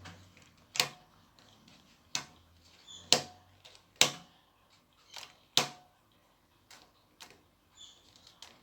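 A series of sharp plastic clicks at irregular intervals, like the layers of a Rubik's Cube being twisted and snapped into place. The clicks are loudest in the first six seconds and fainter near the end.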